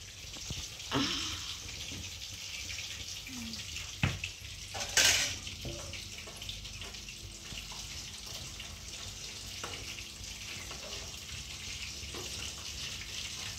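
Marinated fish pieces deep-frying in hot oil in a steel kadhai, a steady sizzle, with a few sharp clinks of a metal slotted ladle against the pan and a louder burst of sizzling about five seconds in.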